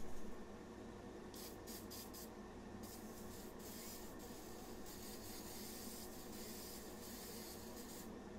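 Aerosol can of wax and grease remover spraying onto a plastic AR-15 pistol grip: a short thump right at the start, a few short squirts about a second and a half in, then a long hiss with brief breaks until just before the end. A portable paint booth's fan hums steadily underneath.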